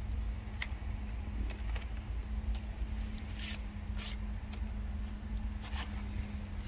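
A paper seed packet being torn open by hand: a string of short crinkling rips and rustles, the loudest a little past halfway, over a steady low hum and rumble.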